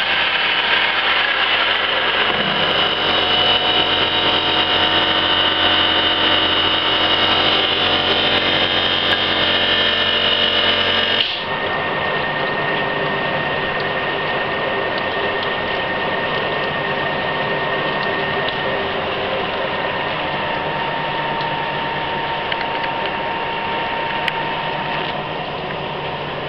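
1974 Emi-Mec E Sprint plugboard automatic lathe running, with a steady mechanical whine of many tones. About eleven seconds in the sound drops abruptly to a quieter, slightly different steady running.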